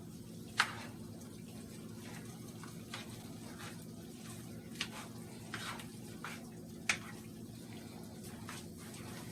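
Chicken and vegetables cooking in a pot, a spoon stirring and knocking against the pot with a few sharp clinks, over a steady low hum.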